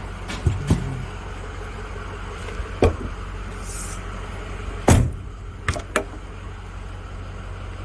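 A few sharp knocks and clicks, the loudest about five seconds in, over a steady low hum.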